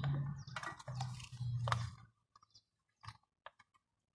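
Small clicks and taps of a hand handling a plastic funnel in a scooter's oil filler neck. Over the first two seconds a low steady hum with rustling runs underneath, then cuts off suddenly.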